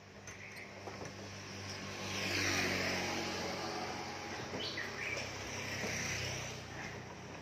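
A motor vehicle passing on the road: an engine hum with tyre and wind noise that builds to its loudest about two and a half seconds in, holds, and eases off near the end.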